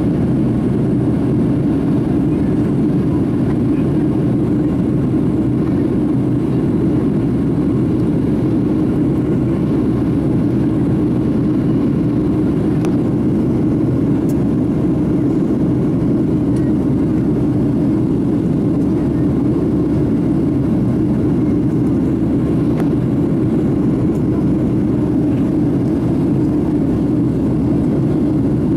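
Boeing 757 jet engines and rushing airflow, heard from inside the passenger cabin as a steady, low roar at climb power during the climb-out after takeoff.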